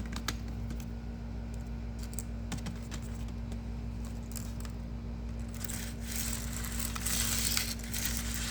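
ASMR clicking and tapping: scattered light clicks like button or key presses, then from about six seconds a dense, busy rattle of small hard objects. A steady low hum runs underneath.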